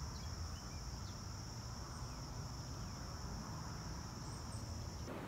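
Insects trilling in one steady, high, unbroken drone over a faint low rumble. The trill stops just before the end.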